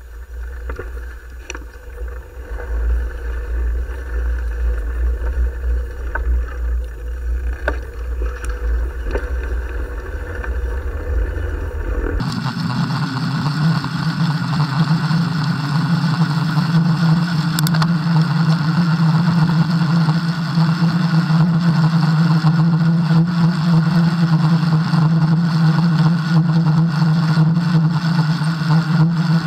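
Wind and road noise picked up by a camera on a bicycle riding along a concrete sidewalk: a low rumble with a few light knocks. About twelve seconds in it switches abruptly to a louder, steady droning hum.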